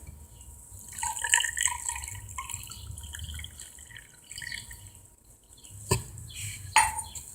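Water being poured into the ports of a cylinder head, trickling and splashing for about three seconds: a water test for valves that do not seal. Two light knocks follow near the end.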